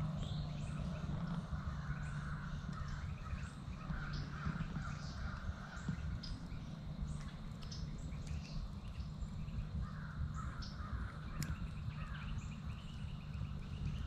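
Crows cawing in bouts, a harsh run of caws near the start, again about four seconds in and again near ten seconds, with smaller songbirds chirping and whistling throughout. A low steady hum runs underneath.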